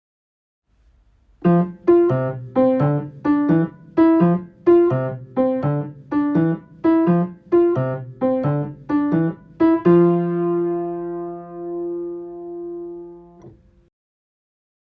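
Piano playing a quick repeated figure of short struck chords, about three a second, then one final chord left ringing for a few seconds before it is cut off.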